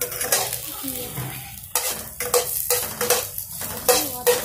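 Steel ladle stirring chopped okra in a frying pan, scraping and knocking against the pan, with a run of quick strokes from a little under two seconds in, over the sizzle of the okra frying in oil.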